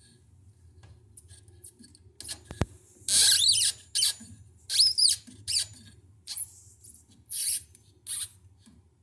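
A sharp click, then a run of short, high-pitched squeaks and scrapes, some sliding up and down in pitch, from about three seconds in.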